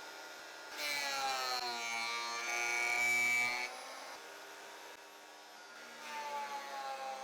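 Portable thickness planer running, its motor whine getting louder and dropping slightly in pitch as the glued-up cedar panel feeds through the cutterhead about a second in. It eases off, then loads again near the end.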